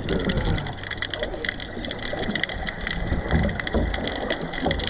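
Wind rumbling on the microphone over water washing and splashing, with scattered light clicks.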